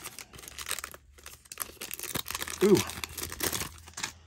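Trading-card pack wrapper being torn open and crinkled by hand, in a run of crackling rips.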